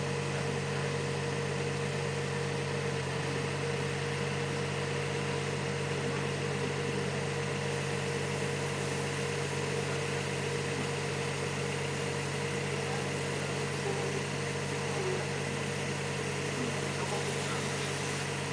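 Steady mechanical hum of machinery running at an even pitch, a low engine-like drone with no change in speed.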